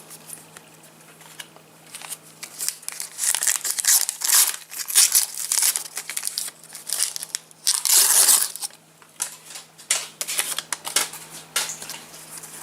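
Foil trading-card packet crinkling and rustling in irregular bursts as it is handled and opened, with cards shuffled; the loudest crackle comes about eight seconds in.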